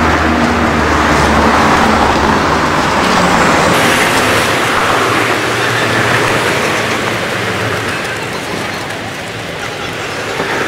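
Steady road traffic noise with a low engine hum that fades out about halfway through.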